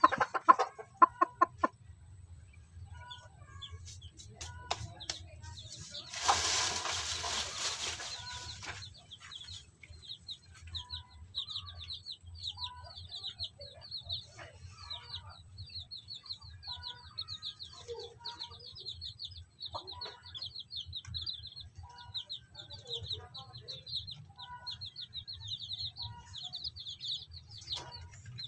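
A brooding hen clucking over her day-old chicks, louder at the start, while the chicks peep in a fast, unbroken run of short high chirps from about ten seconds on. About six seconds in comes a rustle lasting some three seconds.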